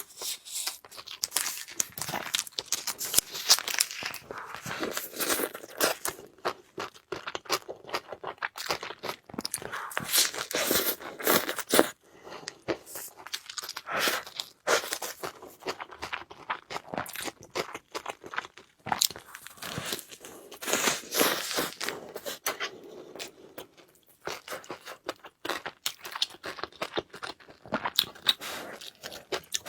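A person eating: crunchy bites and chewing in irregular runs of crackling clicks, with short pauses between mouthfuls.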